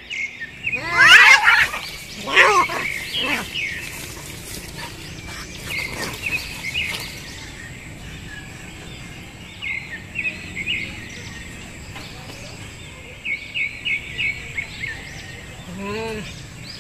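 Two domestic cats fighting: a burst of loud screeching about a second in as they clash, then quieter stretches and a short low yowl near the end. Small birds chirp in the background.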